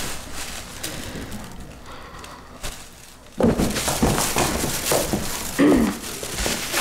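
Footsteps and rustling as a person walks onto a small stage, starting about halfway through after a few quieter seconds. Near the end comes the loudest sound, a brief falling tone.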